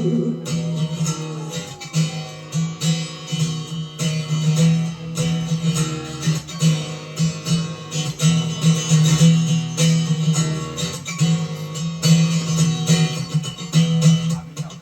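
Acoustic guitar strumming chords in a steady rhythm, an instrumental passage between sung verses.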